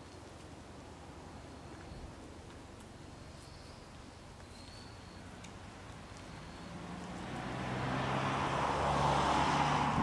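A motor vehicle approaching on a road, its engine hum and tyre noise building steadily from about two-thirds of the way in and loudest at the end.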